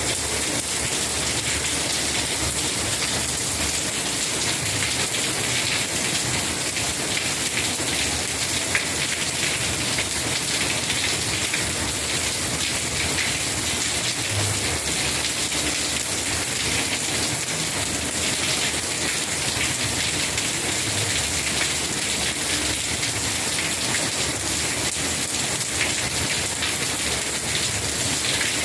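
Steady rain falling, a dense even hiss of many small drop impacts that keeps the same strength throughout.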